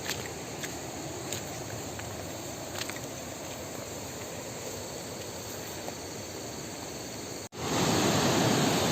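Steady outdoor ambience along a river, with a faint insect chirp and a few light clicks. Near the end it cuts suddenly to a louder steady rush of water from the river running high.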